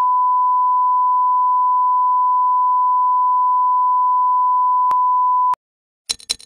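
Steady test-tone beep of a colour-bars intro, one unbroken pitch, cutting off suddenly about five and a half seconds in. After a brief gap, a fast ticking starts near the end.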